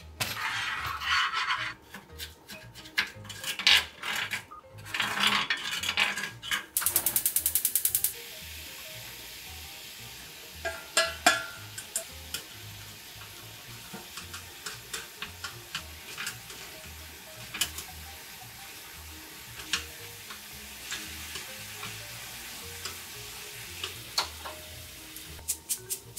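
Stirring and tossing in a nonstick frying pan: a spoon working simmering sauce, then chopsticks tossing shredded dried squid (jinmichae) in the sauce, with small clicks of the chopsticks on the pan over a low sizzle. About seven seconds in there is a brief, fast, even rattle.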